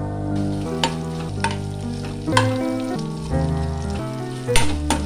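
Sliced onions frying in hot oil in a kadai, with a spatula stirring and giving a few sharp knocks against the pan, over background instrumental music.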